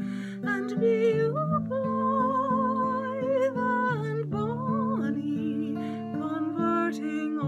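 A woman singing a slow melody with vibrato on the held notes, accompanied by her own acoustic guitar.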